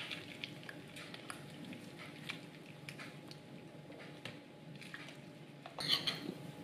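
Soft, wet squishing and small crackles of hands rubbing a spiced garlic-butter mixture into the skin of a raw whole chicken. Near the end there is a louder brief scuff as fingers scoop more of the mixture from a plate.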